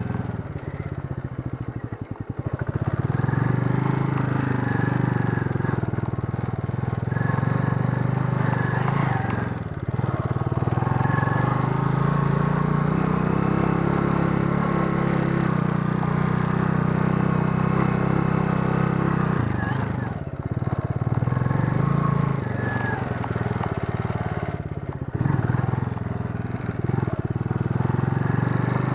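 Junak M12 motorcycle engine running while riding a forest dirt trail, its note rising and falling with the throttle and dropping briefly several times.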